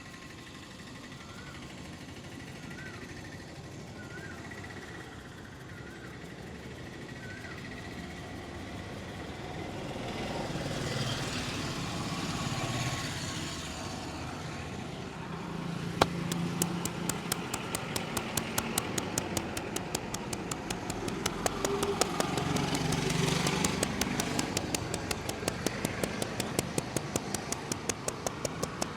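Street traffic noise with engines passing. About halfway through, a fast, even run of sharp taps starts and keeps going.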